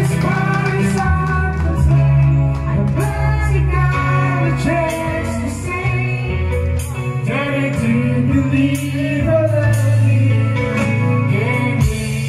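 Live band playing a song, a woman singing into a microphone over keyboard, guitar and a steady bass line, with regular drum hits.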